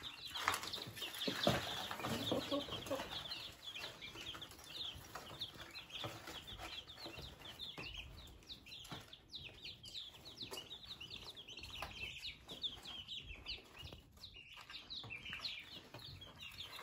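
A brood of five-day-old chicks peeping continuously: many short, high, downward-sliding peeps overlapping one another.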